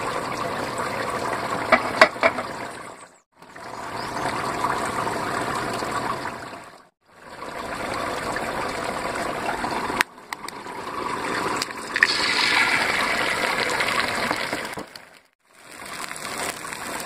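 Egg frying in a nonstick pan over a tin-can stove: a steady sizzling hiss in short cuts with brief silences between them. About twelve seconds in the sizzle turns suddenly louder and brighter, and a few sharp clicks stand out.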